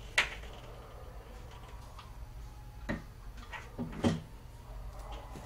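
A few sharp clicks and knocks as the main body of a digital door lock is handled and fitted against a wooden front door: one sharp click just after the start, then three lighter knocks about three and four seconds in.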